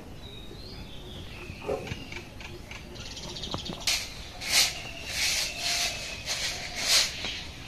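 A short hand broom swept over a bare-earth yard in a run of swishing strokes, about six of them, starting about four seconds in. Before that there are faint animal calls.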